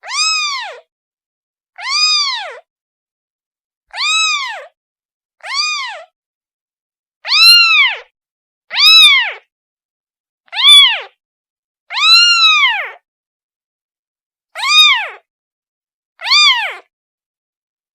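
A kitten meowing over and over, about ten calls spaced a second or two apart, each rising then falling in pitch: a kitten calling for its mother.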